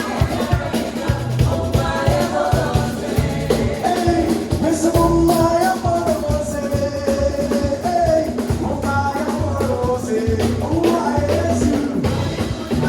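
Live gospel band playing: a drum kit and a low bass line keeping a steady beat under a sung melody.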